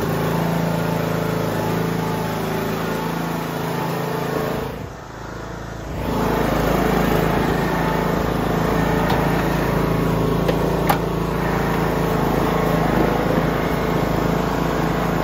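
Riding lawn mower's small engine running steadily. About five seconds in the sound drops away briefly, then the engine runs on a little louder and rougher as the mower drives across the grass.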